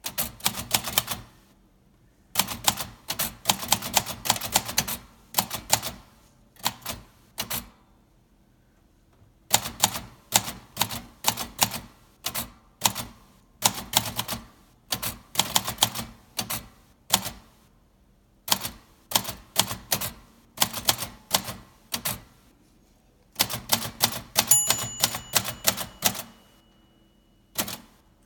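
A 1953 Royal Quiet De Luxe manual typewriter being typed on: bursts of rapid key and typebar strikes with short pauses of one to two seconds between the runs.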